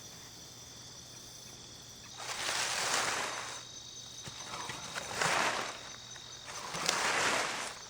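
Steady high-pitched trilling of insects, with three louder swells of rustling noise, each about a second and a half long, over it from about two seconds in.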